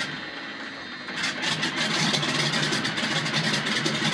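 De Havilland Canada DHC-2 Beaver floatplane's radial engine and propeller, heard from inside the cockpit. The engine gets louder about a second in as power comes up for the run across the water.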